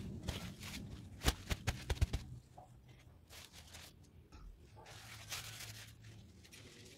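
Fresh lettuce and leafy greens rustling and crackling as hands handle and lay them out on a wooden cutting board, with a quick run of sharp clicks and snaps between about one and two seconds in.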